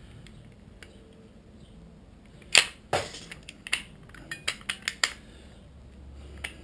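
Steel drum brake shoes and their return springs on a Yamaha TW200 brake plate snapping into place as they are pulled apart and seated: two sharp metallic snaps about two and a half seconds in, then several lighter clicks.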